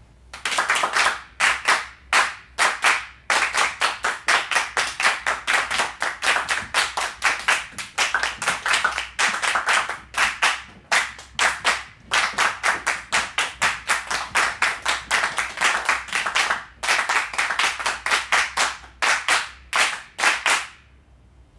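A group of people clapping together in rhythm, about four claps a second, with a few short breaks, stopping about a second before the end.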